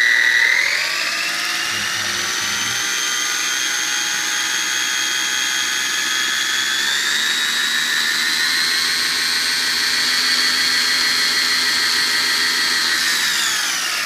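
Brushless RC car motor and drivetrain (Traxxas Slash 4x4 with a Castle Mamba Monster system) at about quarter throttle, spinning 3D printed rims with foam tires. It makes a steady high whine that rises in pitch about a second in, steps up again about halfway, and winds down near the end.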